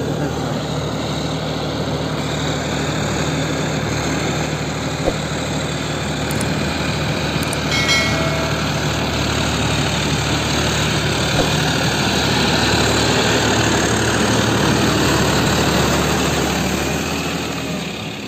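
John Deere 5405 tractor's diesel engine running steadily under load, with the rotavator working behind it, a little louder in the second half. A few short clicks and a brief ringing tone come about eight seconds in.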